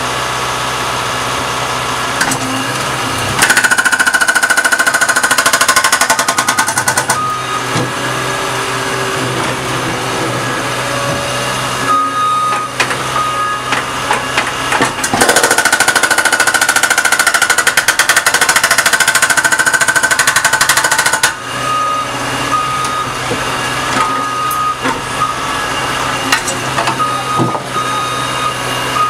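Hydraulic breaker on a skid steer loader hammering through an old asphalt-over-concrete driveway in two long bursts of rapid blows, the second and longer one about halfway through. Between bursts the skid steer engines keep running steadily, with occasional knocks of broken pavement.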